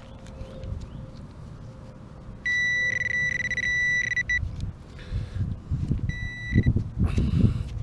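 Metal detector sounding a steady high target tone for about two seconds, then a second short beep. Several heavy thuds follow near the end.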